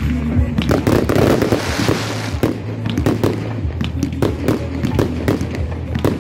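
Aerial fireworks display: a rapid string of shell bursts and bangs, thick with crackling between about one and two seconds in.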